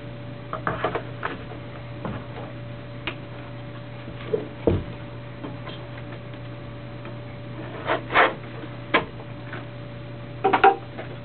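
Scattered light clicks and knocks from knives and leather sheaths being handled and set down on a table, over a steady electrical hum.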